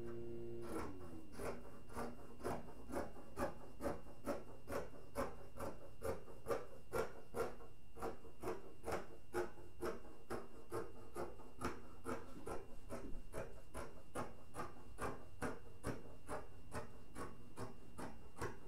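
Scissors cutting through cotton muslin fabric, a steady run of crisp snips at about two to three a second.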